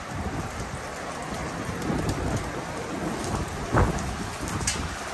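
Steady rain during a thunderstorm, with a low restless rumble underneath and one short, sharp thump a little under four seconds in.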